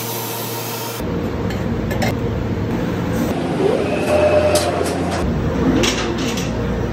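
Motoman UP20 welding robot arc-welding a steel exhaust pipe, a steady hum and hiss for about the first second. Then the sound changes to a dense, steady mechanical rumble with a few sharp clinks.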